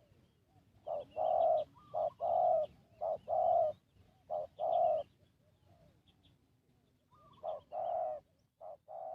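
Spotted dove cooing: a run of four two-part coos, each a short note followed by a longer, deeper note, then after a pause of about two seconds two more near the end. Faint high chirps from small birds are heard alongside.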